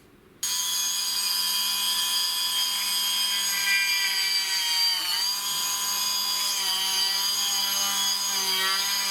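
Small high-speed electric drill starting abruptly and running with a steady high whine. Its pitch sags briefly about five seconds in as it takes load, then recovers.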